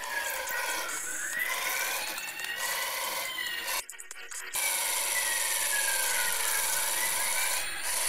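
Toy fire truck's electronic siren wailing slowly up and down through its small speaker over a steady hiss. It cuts out for about half a second near the middle, then carries on.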